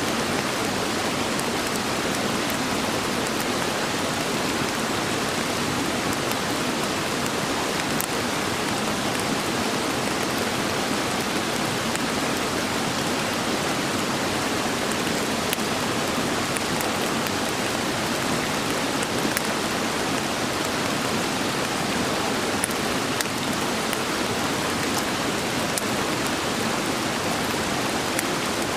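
Wood campfire crackling with a steady dense hiss, with a few sharp pops standing out.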